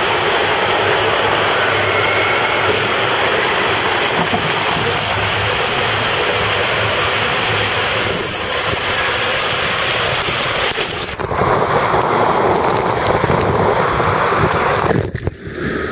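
Water rushing and a rider's body sliding through an enclosed body water slide tube, a loud steady rush. About eleven seconds in, the sound changes: less hiss, and a fuller rushing sound that briefly dips near the end.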